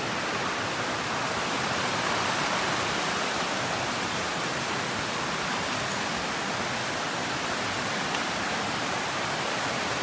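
Creek water rushing steadily, an even, unbroken wash of flowing water.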